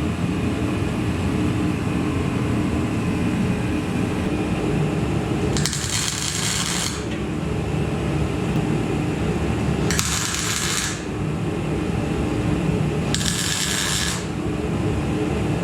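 Welding the steel frame in short bursts of about a second, four in all with a few seconds between them, as if tack-welding, over a steady loud hum of shop noise.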